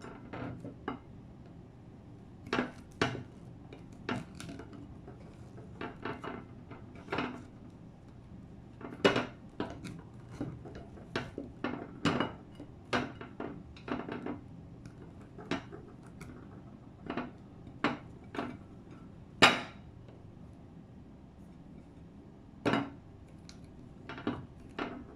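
A presser knocking and clinking against a plate as slices of bread are pressed flat: irregular sharp knocks, one every second or so, the loudest about three-quarters of the way through.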